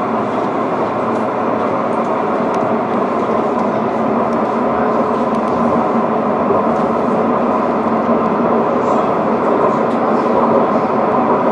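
Edinburgh tram (CAF Urbos 3) running at steady speed, heard from inside the passenger saloon: an even rumble of wheels on rail and running gear, with a faint steady hum.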